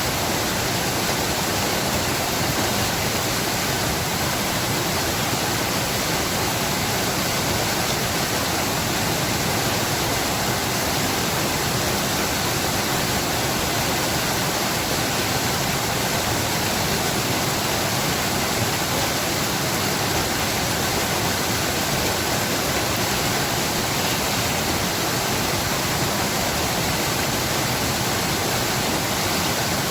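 Rushing water: a stream or small waterfall flowing in a steady, unbroken rush.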